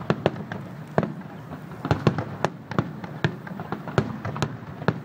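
Aerial firework shells bursting in quick succession: an irregular string of sharp bangs and pops, about three a second.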